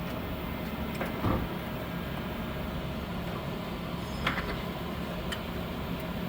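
Knuth RSM 1500C cylindrical grinder running, with its wheel head feeding into a turning part: a steady machine hum with a few short clicks.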